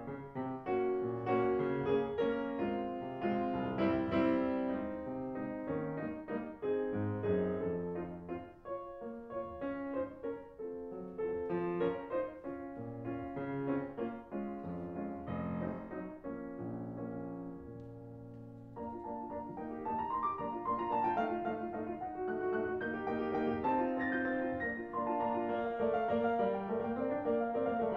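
Background piano music, slow and sustained, thinning to a quiet held passage a little past halfway before fuller playing resumes.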